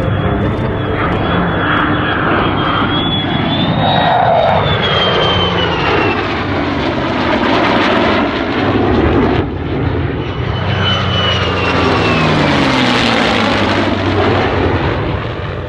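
An F-35A Lightning II's jet engine and a P-51 Mustang's V-12 piston engine flying by together in formation. A high jet whine falls in pitch as they pass, once about four seconds in and again about twelve seconds in.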